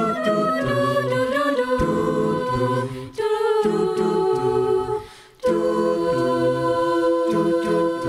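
A cappella vocal group singing wordless chords with no instruments, several voices holding stacked notes over a low bass line. About five seconds in the voices fade almost to nothing, then come back together on a sustained chord.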